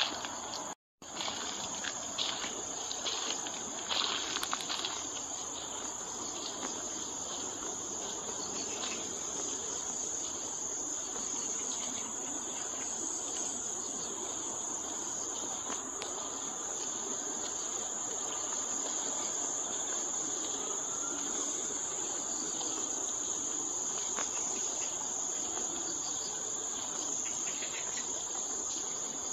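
Steady, high-pitched chorus of insects trilling without a break, with a few footsteps in the first few seconds.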